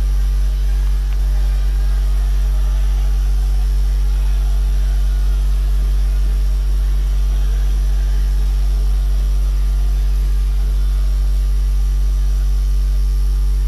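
Loud, steady electrical mains hum, a deep 50 Hz drone with a ladder of higher overtones, unchanging throughout.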